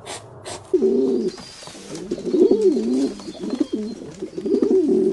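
Pigeon cooing: low, warbling coos in several rising-and-falling phrases, starting about a second in. A few short raspy strokes are heard at the very start.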